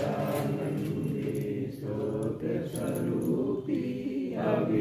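Voices chanting a Jain devotional hymn together, drawn-out sung phrases with brief breaks between them.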